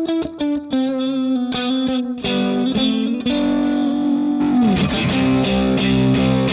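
Electric guitar played through a Line 6 Helix modeller with effects. Quick repeated picked notes give way to long held notes about two seconds in. Then it slides down into steadily repeated chords.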